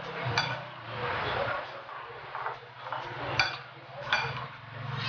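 Utensil clinking sharply against a bowl several times while cucumber slices are stirred and pressed down into their dressing.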